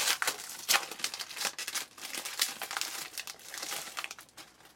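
Trading cards being handled and flipped through a stack: crisp, irregular rustling and sliding with sharp little snaps, fading out near the end.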